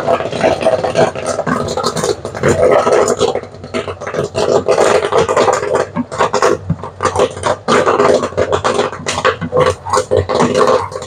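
Caramel popcorn machine running: its 12-volt stirrer motor hums steadily while the popcorn rattles and scrapes in the pan in a dense run of short clicks.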